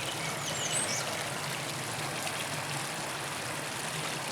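Creek water flowing steadily, a constant rushing wash.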